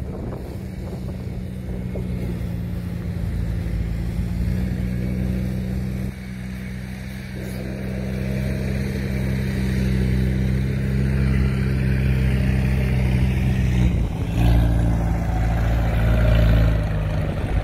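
Kubota DC-105X combine harvester's diesel engine running steadily under load as it cuts and threshes rice. The engine note shifts about fourteen seconds in, with a deeper rumble after.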